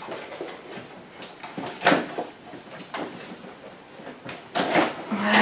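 Plastic clicks and clunks of a Maxi-Cosy Pebble infant car seat being worked loose from its adapters on a Cybex Mios stroller, a fit that releases less smoothly than with Cybex's own seats. The loudest knock comes about two seconds in, with a few more near the end.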